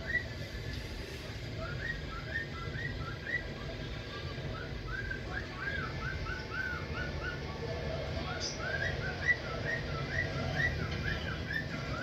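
A featherless nestling bird's begging calls as it is spoon-fed: runs of short, high, rising chirps, several a second, with pauses between the runs. A steady low rumble sits underneath.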